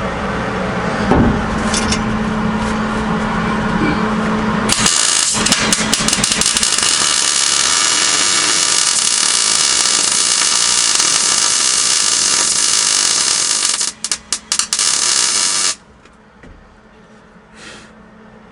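Electric welder arc crackling steadily for about ten seconds, then a few short bursts of welding before it stops abruptly. It is preceded by a rumble with a steady low hum.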